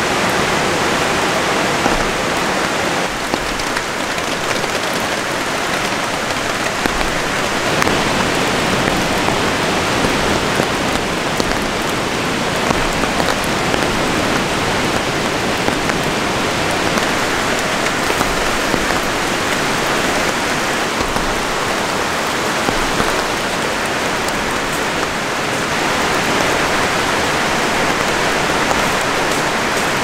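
Steady heavy rain falling on a tarp shelter, an even dense hiss of many drops.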